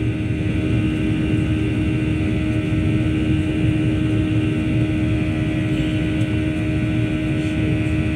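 Boeing 737-800's CFM56-7B jet engine heard inside the cabin during the climb-out after takeoff: a steady rush of engine and air noise with a constant low hum and steady higher tones.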